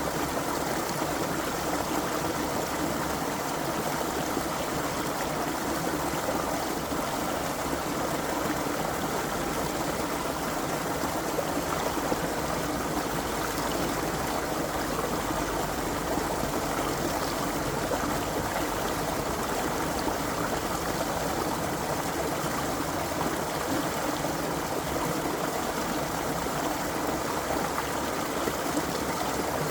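Creek water flowing steadily, an even, unbroken rush of water.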